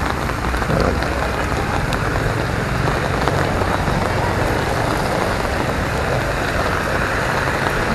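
Steady wash of moderate rain falling, mixed with the rush of a swollen, fast-flowing drainage canal after heavy rain.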